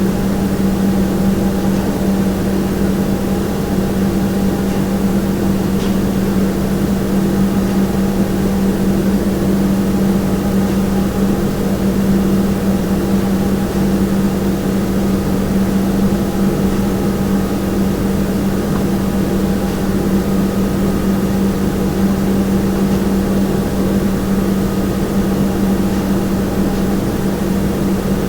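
Kitchen room tone: a steady, unchanging hum of machinery with one strong low tone and fainter higher tones over a constant noise.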